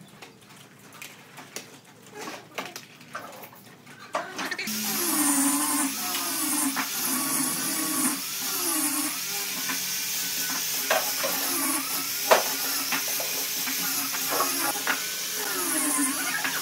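A power tool's electric motor starts about four and a half seconds in and runs on, its pitch wavering up and down as it is worked against the wood, with a few sharp knocks. Before it starts there are only scattered light knocks.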